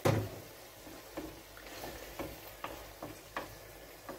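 A wooden spoon stirring minced-meat and tomato ragù in a frying pan, with light irregular taps of the spoon against the pan over a soft sizzle of the simmering sauce. A single sharp knock comes right at the start.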